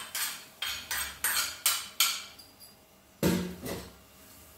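A metal spoon knocking against a small metal tempering ladle, a run of sharp clinks two or three times a second as the fried mustard seeds and curry leaves are knocked out into a bowl of yogurt. A heavier, lower knock comes a little after three seconds, then one more clink.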